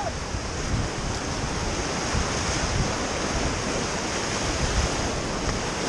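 Steady rush of the Ganga's white water around a raft as it paddles through a rapid, with wind buffeting the microphone.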